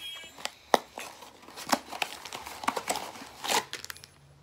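Plastic packaging around a small toy figure crinkling and tearing as it is handled and opened, with a few sharp crackles about a second apart.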